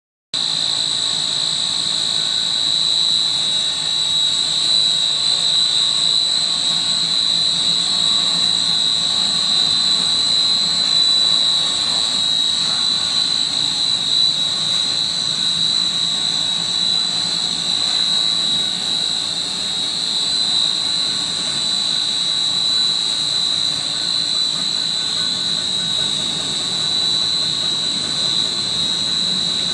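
Snack pellet extrusion line running: a steady machine hum with a constant high-pitched whine over it.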